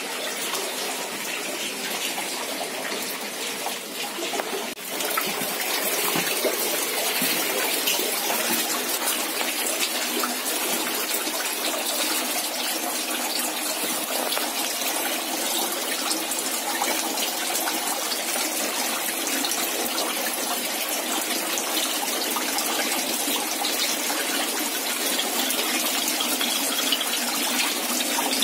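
Tap water running steadily and splashing into a trout-egg incubation trough, a constant rushing splash. It gets louder about five seconds in.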